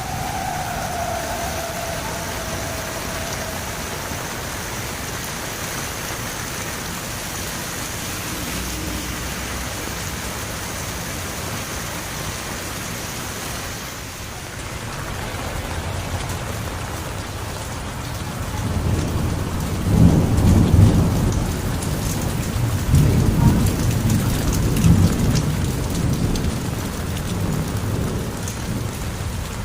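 Heavy rain falling steadily in an even hiss. In the last third a long roll of thunder rumbles low, swelling twice. A brief falling tone sounds near the start.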